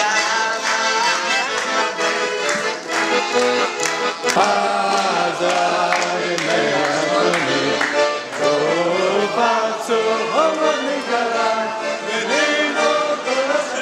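Accordion playing a tune, with a group of voices singing along.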